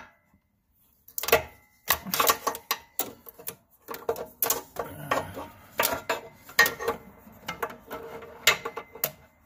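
Irregular clicks, knocks and rattles of a work light being handled and repositioned, starting about a second in and going on in quick, uneven bursts.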